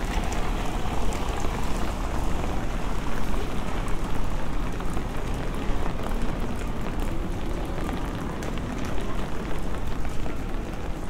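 Steady rain falling on wet stone pavement and cobbles, with scattered drops ticking close by and a low rumble underneath.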